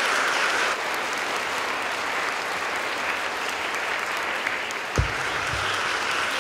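Audience applauding, a little softer after the first second. About five seconds in there is a single thump as the microphone on its stand is handled.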